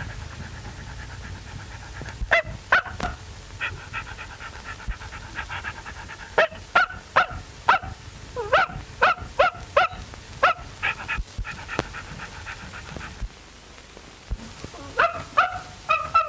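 A small dog, a Pekingese, yapping in quick, sharp, high yaps, about two or three a second. After a pause of a few seconds there is a last flurry near the end. A low hum runs under the first part.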